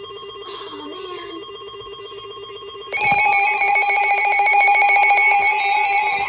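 Weather-alert radio sounding its emergency alert tones for a severe thunderstorm warning: a steady electronic tone, joined about three seconds in by a louder, higher tone pulsing rapidly.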